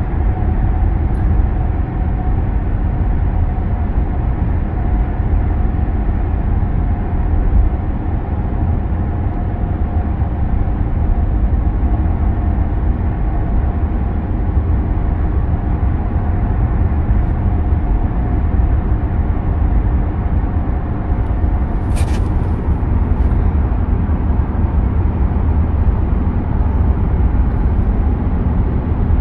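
Car driving through a road tunnel, heard from inside the cabin: a steady low rumble of engine and tyre noise. One brief sharp click about two-thirds of the way through.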